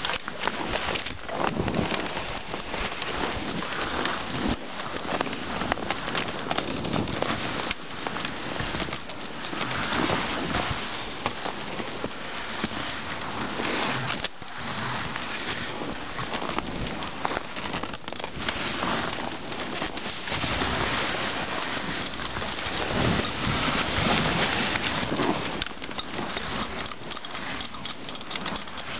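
Dog sled moving over a snow trail behind a running dog team: a steady scraping, crackling hiss of the runners on the snow.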